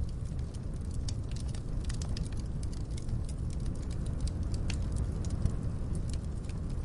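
Wood fire crackling in a fireplace: frequent sharp irregular pops and snaps over a steady low rumble.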